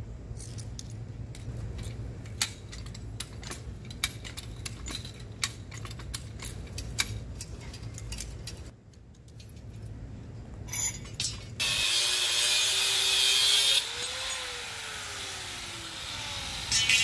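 Metal clicking and clinking as locking pliers and a clamp are worked on a steel ground rod. About twelve seconds in, an angle grinder runs with a loud grinding hiss for about two seconds, then is switched off and its motor winds down.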